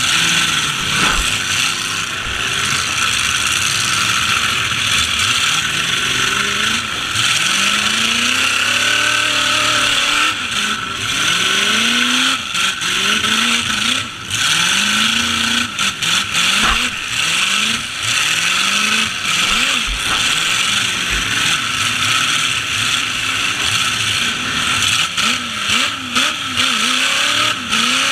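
Demolition derby trucks' engines revving up and falling back again and again, over a steady noisy roar, with scattered sharp knocks of impacts.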